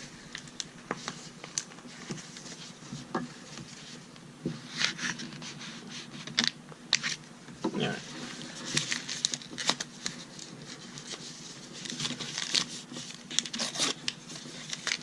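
Hands unpacking a pen from its packaging: crinkling, tearing and irregular small clicks and taps as it is worked open.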